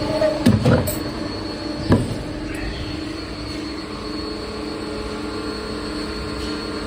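Wire-processing machinery running with a steady hum, a pulsing drone and a high whine. Three sharp knocks come in the first two seconds.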